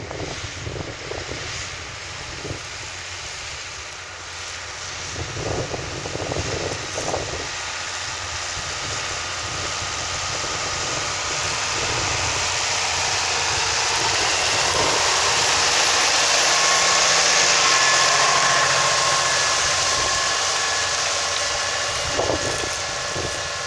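New Holland T7.170 tractor's diesel engine working steadily under load while pulling a tine stubble cultivator through wheat stubble. It grows louder as the tractor comes close, reaching its loudest about three-quarters of the way through, when a steady high whine joins the engine sound.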